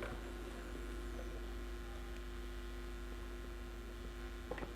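Steady low electrical hum, with a couple of faint clicks near the end.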